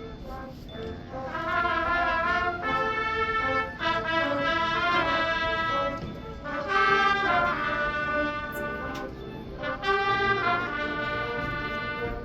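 High school marching band brass section playing sustained chords, soft at first and then swelling into loud phrases, with a brief drop about halfway through.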